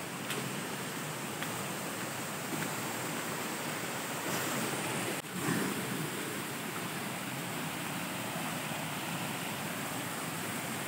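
Steady rush of flowing stream water, an even hiss with no distinct events, briefly dipping about five seconds in.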